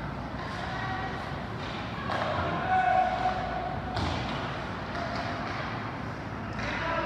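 Ice hockey play in a rink: three sharp knocks of stick and puck, or puck against the boards, over the low hum of the arena, with players' and spectators' voices calling out.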